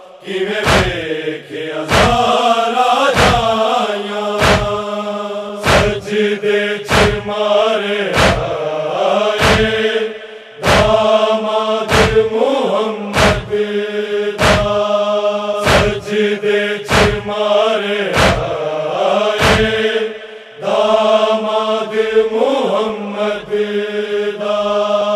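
Noha chanting: a group of voices holding a sustained mourning line, with brief pauses between phrases. Under it runs a steady matam chest-beat, one sharp thump about every second and a quarter.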